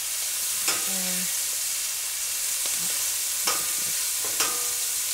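Cubes of beef sizzling in hot oil in a stainless steel skillet as they sear over high heat. Three sharp metallic clicks ring briefly as the metal tongs strike the pan: about a second in, past three seconds and near the end.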